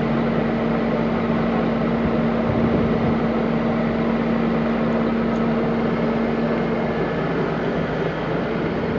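Steady drone of an engine running, with a constant hum and no change in speed.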